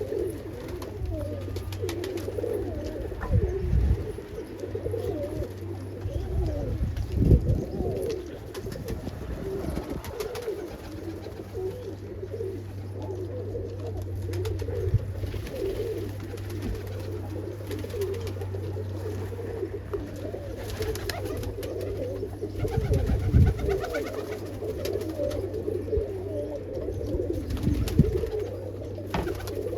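Domestic pigeons in a loft cooing continuously, many birds calling over one another. A few short low thumps stand out, about 4, 7, 23 and 28 seconds in.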